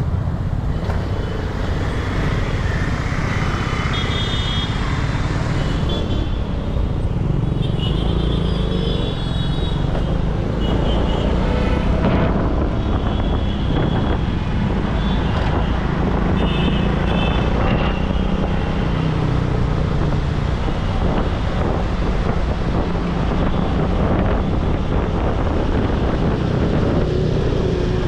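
Dense city road traffic heard from a moving two-wheeler: a steady engine and road rumble, with several short vehicle horns honking during the first two-thirds.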